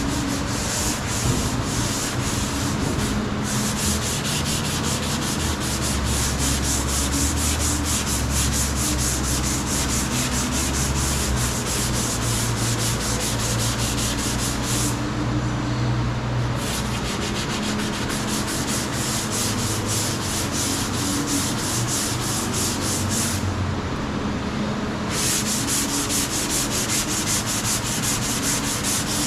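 Sanding body filler on a car quarter panel: a continuous scratchy rasp of abrasive over hardened filler, with a low hum underneath. The sanding eases off twice for a second or two.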